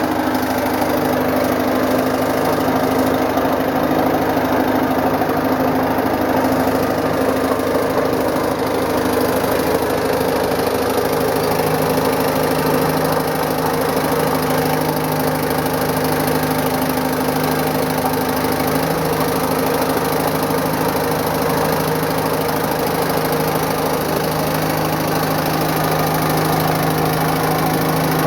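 Caterpillar 955 track loader's diesel engine running steadily, its lower note growing a little stronger about eleven seconds in.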